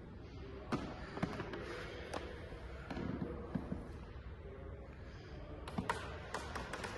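Scattered knocks and sharp clicks over steady low room noise, with a few soft thuds midway and a quick cluster of clicks near the end.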